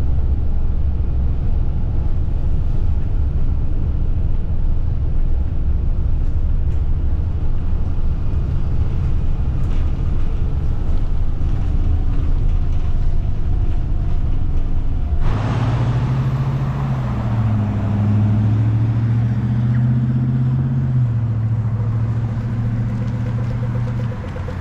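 Road vehicle running: a deep rumble, which changes abruptly about fifteen seconds in to a steady engine hum whose pitch steps up and down a few times.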